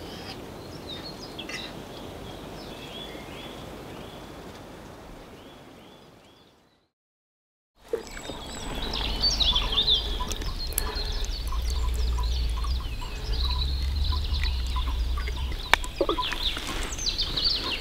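Wild birds chirping and singing, fading out about six seconds in to a second of silence. The birdsong then returns louder over a low rumble, with scattered clicks.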